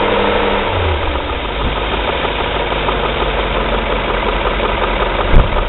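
BMW M5 E39's S62 V8 engine running with a rattling clatter, the VANOS rattle the owner is documenting. The engine speed settles down about a second in, and there is one brief thump near the end.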